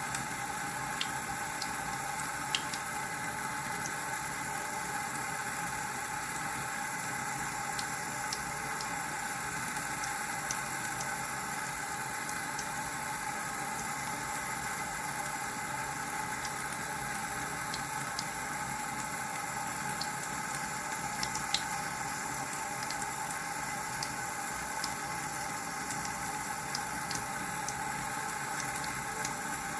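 Water running steadily without a break, with a few faint clicks scattered through it.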